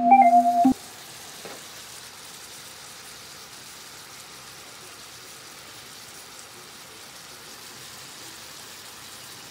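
A few keyboard music notes end within the first second. Then cheese dakgalbi sizzles steadily in a BRUNO compact hot plate, an even frying hiss.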